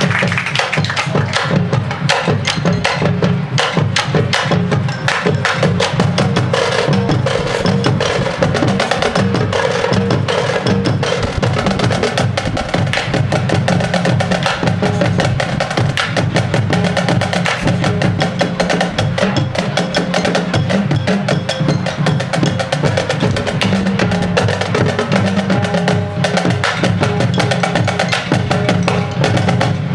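High school marching band playing, with the percussion section to the fore: fast, dense drum strokes over held lower notes.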